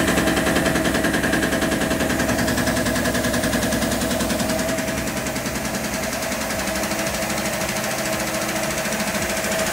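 Tormach PCNC 1100 mill taking a light facing cut with a single-flute Superfly fly cutter at 640 RPM: a rapid, even hammering as the one cutting edge strikes on each turn, an interrupted cut that is beating the part in its soft jaws. A steady whine runs underneath, and the cut starts loud and eases slightly after about five seconds.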